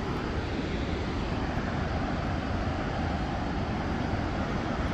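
Steady roar of a large waterfall pouring into a canyon, an unbroken rushing noise with a heavy low rumble.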